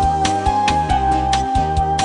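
Instrumental background music: a held high note over changing low bass notes, with a light, even beat.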